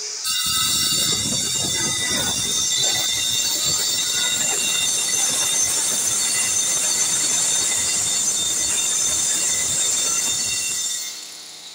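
Corded angle grinder with its disc running against the edge of a stone panel: a steady high-pitched whine over a gritty scraping, dropping away about a second before the end.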